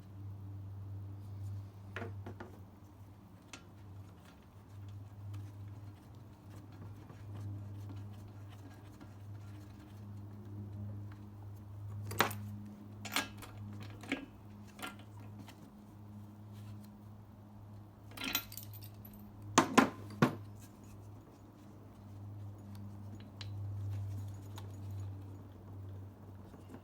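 Small hard tools and parts clinking and clattering as they are handled, in a few short bursts, the loudest about two thirds of the way through, over a steady low hum.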